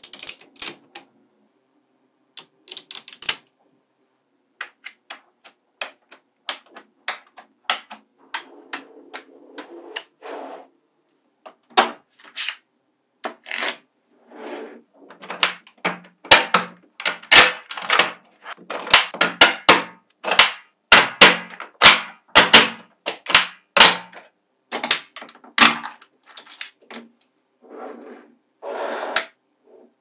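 Small neodymium magnetic balls clicking and snapping together as they are handled and pressed into blocks: many sharp clicks in quick, irregular runs, thickest through the middle, with a few softer rattling stretches.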